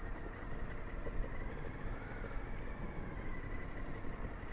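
Motorcycle engine running steadily at low speed as the bike rolls slowly across gravel, with a low rumble under faint steady tones.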